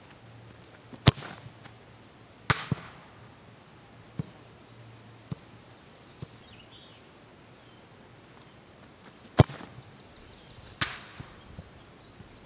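Knuckleball free kicks: a soccer ball struck hard by the foot with a sharp thud, twice, about a second in and a few seconds before the end. Each kick is followed about a second and a half later by a fainter impact with a short tail, the ball hitting the goal. Lighter knocks come in between.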